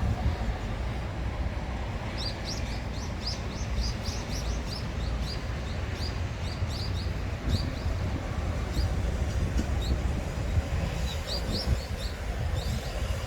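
A small bird chirping in quick series of short high notes from about two seconds in, breaking off in the middle and starting again near the end, over a steady low outdoor rumble.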